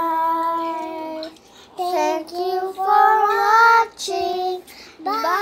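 A young girl's voice singing a few long held notes in short phrases with brief breaks between them.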